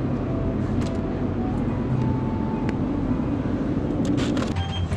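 Steady low hum of a refrigerated drinks case with its glass door open, with a few light clicks as bottles are handled. The hum drops away near the end.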